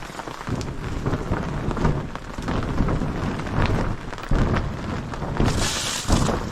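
Steady rain falling, mixed with low rumbling and knocks on the microphone. A brief loud rushing hiss comes about five and a half seconds in.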